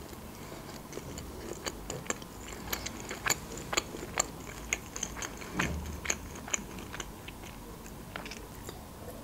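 Close-miked mouth sounds of a person chewing food: a run of short wet clicks and smacks, busiest and loudest in the middle and thinning out near the end.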